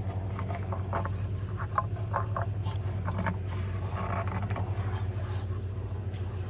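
A plastic pipe fitting being screwed by hand onto the outlet of a plastic pond filter canister: small scratchy clicks and creaks of plastic threads and gasket, over a steady low hum.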